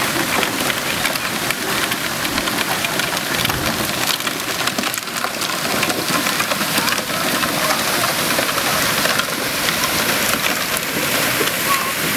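Crunching and crackling of gravel under the plastic wheels of children's John Deere pedal tractors and small feet, over the steady rush of a large cascading fountain.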